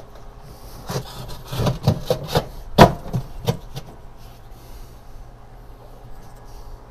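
Clay Biscotto pizza stone being slid into a Gozney Arc XL pizza oven: a run of scrapes and knocks as the stone rubs across the oven floor, the loudest knock a little under three seconds in, then it goes quieter.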